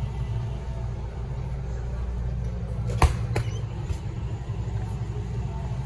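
Steady low hum of a supermarket's frozen-food aisle, with one sharp knock about three seconds in and a softer one just after.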